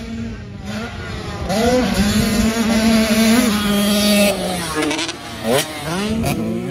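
Dirt bike engines running at speed, a steady engine note that dips and then rises sharply in pitch a few times as the riders come off and back on the throttle, mostly in the second half.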